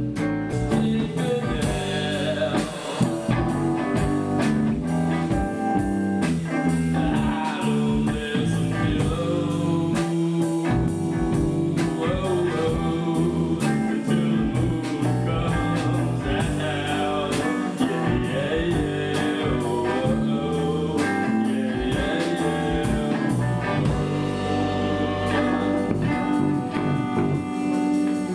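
Rock music with a singer, guitar and drum kit, the drums keeping a steady beat.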